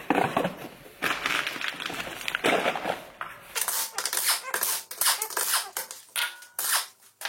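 Pneumatic impact wrench rattling in several short bursts, undoing the wheel bolts to take off a front wheel.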